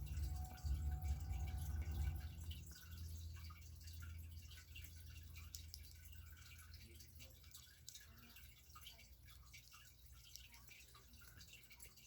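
Faint small clicks and taps of plastic LEGO pieces being handled and pressed together, scattered irregularly, with a low rumble in the first few seconds.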